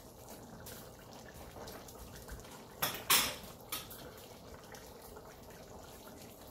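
A few sharp metal clinks of a utensil against a steel cooking pot, bunched about three seconds in, over a faint steady hiss.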